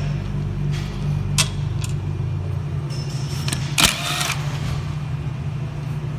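A steady low mechanical hum, with a couple of sharp clicks and, about four seconds in, one louder metallic clank that rings briefly.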